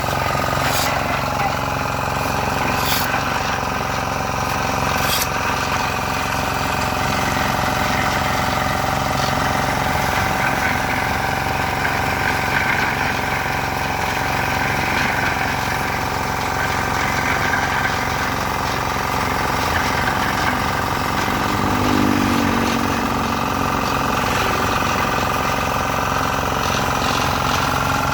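An engine or motor running steadily, with a few sharp clicks in the first five seconds.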